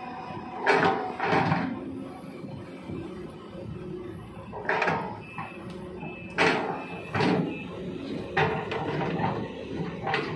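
Hydraulic excavator working in mud, its diesel engine running steadily under about half a dozen sudden clanks and scrapes from the digging bucket and arm.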